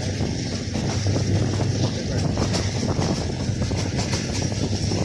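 Train running at speed: a steady, loud rumble and rush of wheels on the rails.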